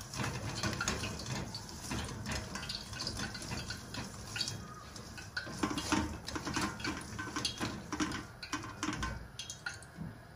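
Peeled raw potatoes being mixed by hand in a stainless steel colander: wet potatoes knocking and rubbing against each other and the metal, in quick, irregular clicks.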